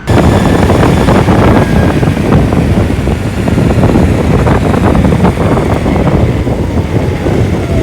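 Wind buffeting the microphone over the rumble of a Flipsky Lightning electric skateboard riding along, with a faint motor whine falling in pitch in the second half as it slows.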